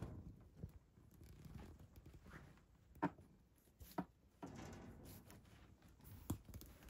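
Very quiet room with three short soft knocks, a second apart and then about two seconds later.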